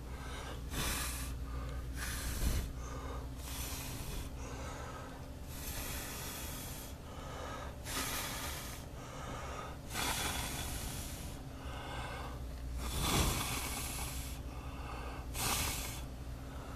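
A person blowing repeatedly onto young tobacco seedlings: about eight breathy puffs of air, each up to a second or so long, over a steady low hum.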